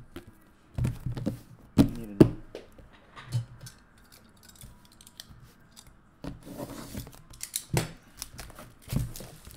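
Sealed trading-card box being cut and torn open: a series of separate sharp snips and knocks as its plastic wrap and tape are cut, with a busier run of them near the end.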